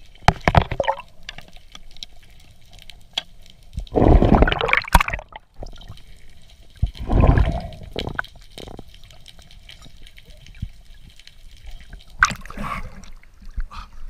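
Water heard through an action camera underwater as a freediver ascends along the dive line: a low hiss broken by loud rushes of water noise at the start, about four seconds in and about seven seconds in. A sharper splash comes near the end as the diver breaks the surface.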